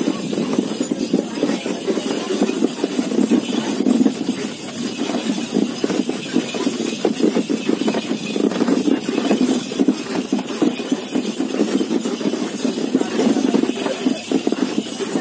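Camel cart rolling along a dirt track: a steady rumble and rattle from the cart.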